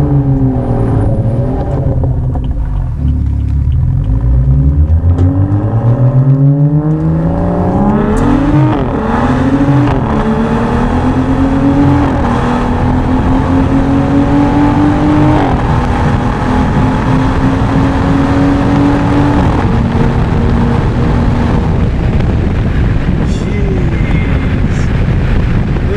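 BMW 335i's turbocharged 3.0-litre inline-six on a Bootmod3 stage 2 tune. The revs fall at first, then climb hard under acceleration, with gear changes dropping the revs about 8, 9 and 15 seconds in and the engine pulling up again after each. The engine sound eases off after about 20 seconds.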